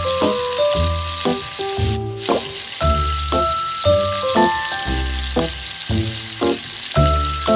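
Pork rib pieces sizzling as they fry on high heat in a nonstick pan. The sizzle breaks off briefly about two seconds in. Background music with a bass pulse and a melody plays over it.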